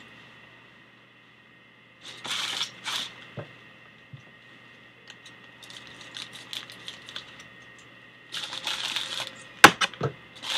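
A white mailer bag being opened with scissors: two short tearing rips about two seconds in, faint snipping ticks in the middle, then a longer rustle of the bag being pulled apart and two sharp clicks near the end, the first of them the loudest.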